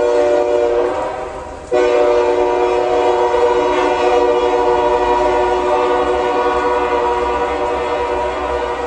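Train horn blowing a steady chord of several tones. The first blast fades about a second in, and a second long blast starts sharply just under two seconds in and holds, over the low rumble of the passing train.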